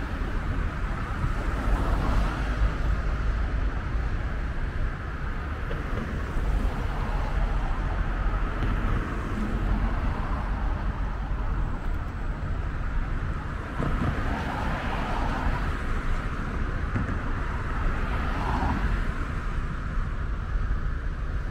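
City street ambience: a steady wash of road traffic from cars passing along a busy road.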